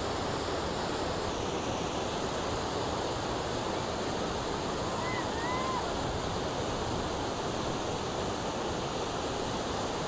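Whitewater rapids on a river, rushing steadily with churning water.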